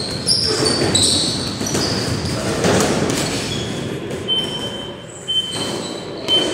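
Boxing gloves thudding and sneakers squeaking on a gym floor as many pairs of boxers spar at once in a large hall. In the second half a short high beep repeats about once a second.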